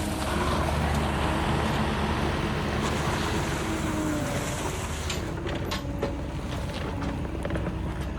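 John Deere 317G skid steer's diesel engine and hydraulics running while the machine is operated, with a wavering whine over the engine. The engine works harder from about half a second in to about three seconds, and a few sharp clanks sound around five to six seconds in.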